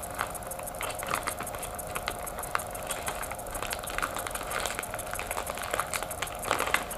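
Small parts and plastic packaging of a drone frame kit being handled, with a run of light clicks, taps and rustles, over a faint steady hum.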